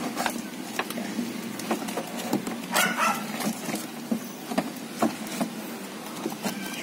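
Irregular light clicks and knocks of parts being handled and fitted on a car door panel, with a short animal call about three seconds in.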